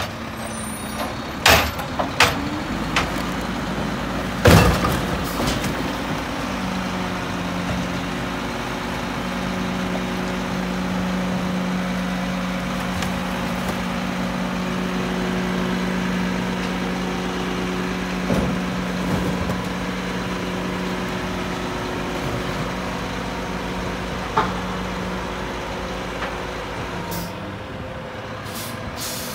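Mack LEU garbage truck running, with several sharp bangs in the first few seconds as the split front bucket is loaded. It then holds a steady raised hum for about twenty seconds, which drops away near the end.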